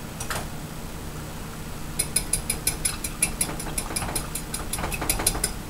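A fork beating an egg in a bowl: quick, even clinks of metal against the bowl, about six a second, starting about two seconds in.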